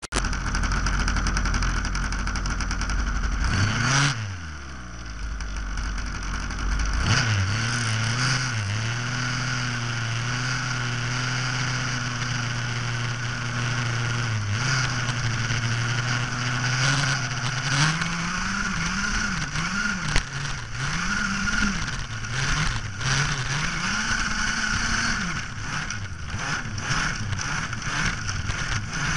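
Small engine of a radio-controlled vehicle, heard up close from the vehicle itself. It holds a steady note for several seconds, then its pitch rises and falls again and again as the throttle is worked.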